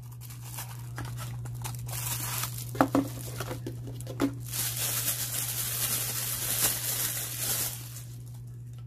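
Clear plastic wrap around a power adapter crinkling as it is handled and pulled off. There are a few light knocks of cardboard first, and the crinkling is densest from about halfway through until shortly before the end.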